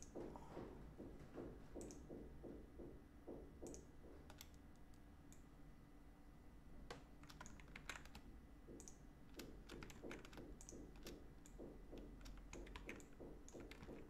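Faint clicking of computer keyboard keys and mouse buttons, scattered single clicks with a quicker run of several about halfway through, over a low steady hum.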